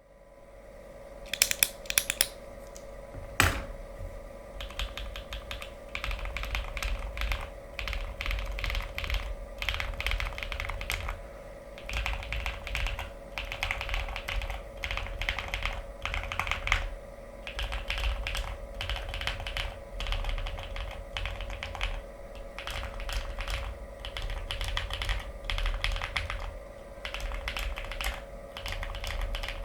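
Modifier keys on a Glacier 80 mechanical keyboard with Krytox-lubed Epsilon linear switches on a polycarbonate plate and GMK Shoko keycaps, with the larger keys on lubed Zeal V2 stabilizers, being pressed. A few separate loud strikes come first, then rapid, continuous pressing in bursts.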